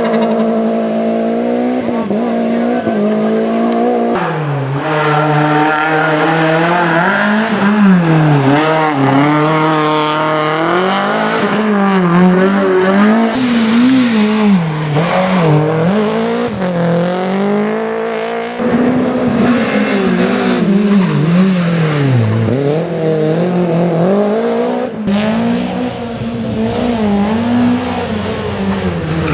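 Renault Clio Williams rally car's four-cylinder engine driven hard. Its pitch holds steady for a few seconds, then rises and falls again and again as it revs up and shifts through the gears. The sound changes abruptly a few times, about four, eighteen and twenty-five seconds in.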